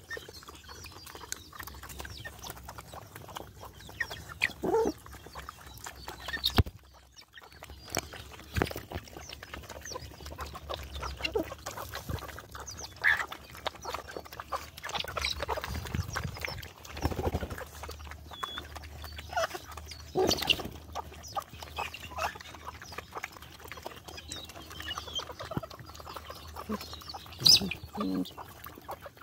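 Several dogs lapping and chewing wet food from a tyre feeder, a steady run of small wet smacks and clicks, with chickens clucking now and then.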